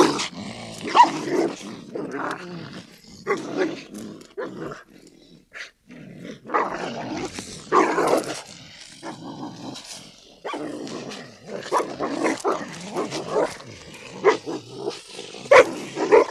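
Two mixed-breed dogs fighting: growling, snarling and barking in irregular bursts, with brief lulls about five seconds in and again near ten seconds.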